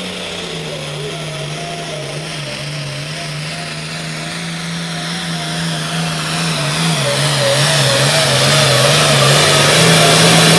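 Diesel engine of a 466 hot farm class pulling tractor running at full load as it drags the weight-transfer sled. Its pitch holds steady with a slight waver, and it grows steadily louder over the last few seconds as it comes nearer.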